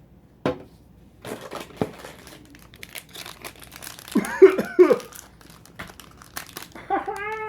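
Foil booster pack crinkling and tearing as it is opened, with crackly clicks. About four seconds in come several short, loud pitched vocal calls, and another longer call starts near the end.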